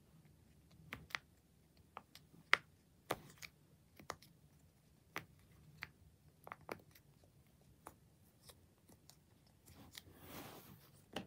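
Silicone push-pop bubble fidget toy shaped like a cactus, its bubbles pressed in one after another by a finger, giving soft, irregular pops about twice a second, one sharper than the rest about two and a half seconds in.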